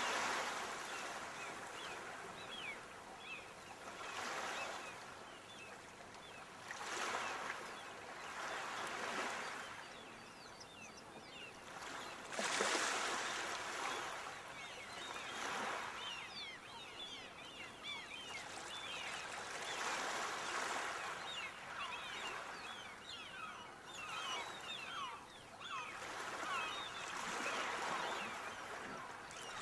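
Sea waves washing in and drawing back, swelling and fading every few seconds, with light trickling and fizzing water between the swells.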